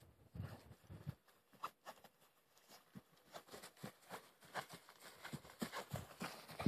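Quiet, irregular crunching steps on frosty grass, coming thicker toward the end.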